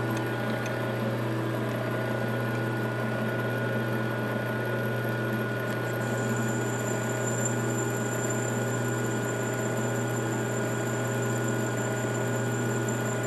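Metal lathe running steadily with a motor hum, as a boring bar takes a last light pass to open the bore of a stainless Damascus ring blank; a faint high whine joins about halfway through.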